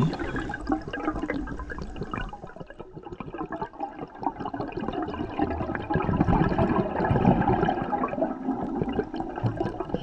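Underwater sound picked up through a diving camera's housing: a muffled, churning rush of water with fine crackling throughout, dipping briefly and then swelling again about six seconds in.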